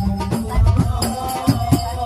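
Sholawat music through a sound system during a sound check: frame drums beating a quick, steady rhythm with rattling, jingling percussion and a held melodic tone.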